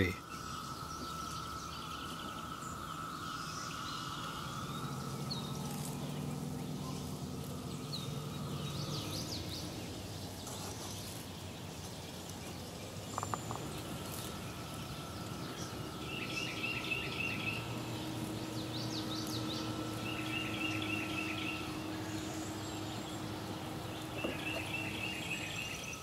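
Outdoor ambience of songbirds chirping and trilling on and off. A rapid warbling phrase repeats three times in the second half. Underneath runs a faint steady drone and a low hum.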